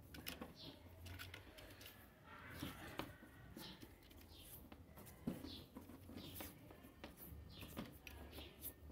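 Electrical tape being pulled off the roll and wound around a wire splice: faint crackling and rustling of the tape unrolling and of fingers handling it, with scattered small clicks.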